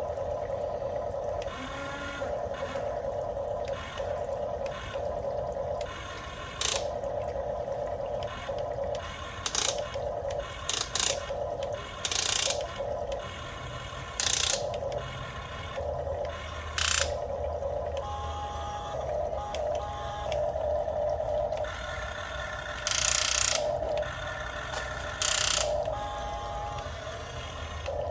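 Small electric gear motors of a toy RC excavator whining in short runs that keep stopping and starting, with brief, louder bursts of noise now and then.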